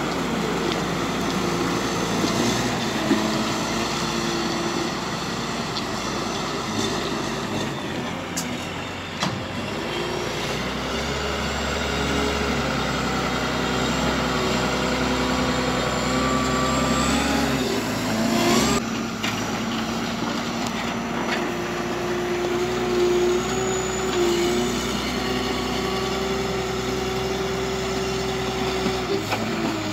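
Heavy diesel engine of a Komatsu WA320 wheel loader running, its engine note rising and falling as it works, with a sudden change about 19 seconds in.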